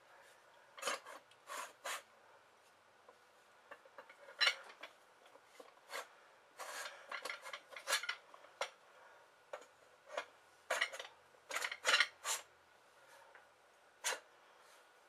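Metal parts of a topside mechanic's creeper being handled and fitted together: irregular clicks, clinks and short scrapes, with clusters about four and a half seconds in, from about seven to eight seconds, and from about eleven to twelve and a half seconds.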